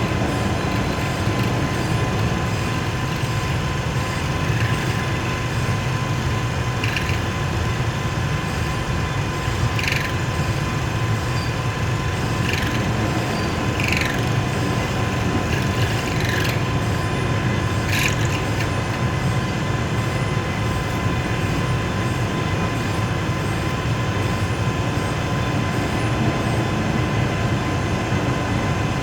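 Lathe running steadily, a constant mechanical hum with a steady whine, and several brief squeaks or scrapes in the middle stretch.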